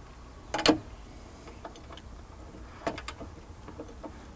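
A metal rod being handled at the back of a vehicle, with light clicks and knocks. There is one short, louder sound about half a second in, then two sharp clicks a moment apart near the three-second mark.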